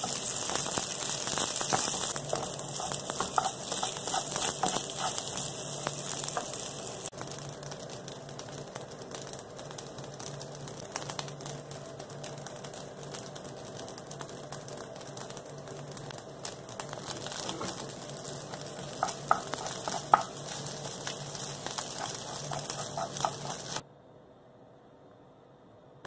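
Egg fried rice sizzling in a non-stick frying pan as a spatula stirs and scrapes it, with many small scrapes and taps. The sizzle is strongest for the first several seconds and then eases; it cuts off suddenly near the end, leaving quiet room tone.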